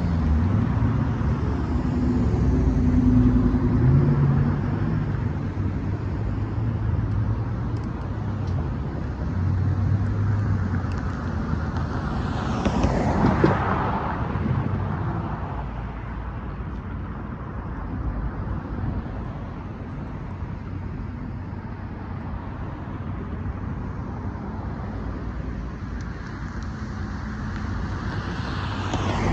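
Road traffic: cars and pickup trucks driving past, engine hum and tyre noise swelling and fading as each goes by, with the loudest pass about 13 seconds in and another near the end.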